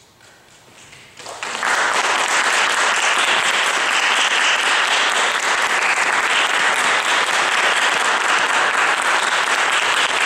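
Concert audience applauding: a few scattered claps swell within about a second and a half into steady, full applause.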